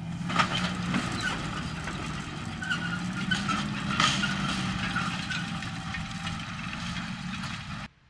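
Fendt 828 Vario tractor's six-cylinder diesel engine running steadily under load while pulling a Horsch Terrano cultivator, with scattered metallic clatter and clicks from the implement. The sound cuts off abruptly just before the end.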